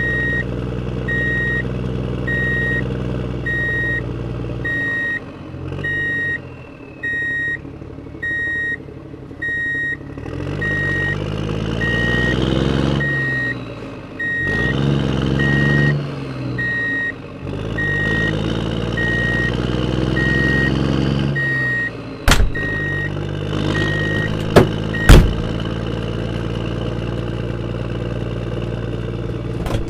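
Model construction truck's engine sound running and revving up and down several times, with a reversing beeper beeping about twice a second that stops near the end. Three sharp clicks come near the end.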